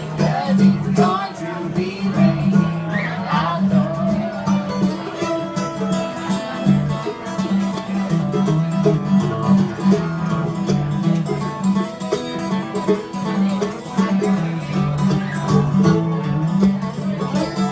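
Live acoustic band music: plucked string instruments picking a blues tune over a steady, pulsing bass line.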